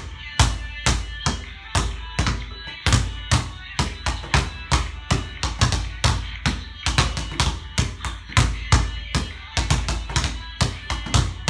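Basketball being dribbled hard and fast on a court, sharp bounces at about three a second, with music playing underneath.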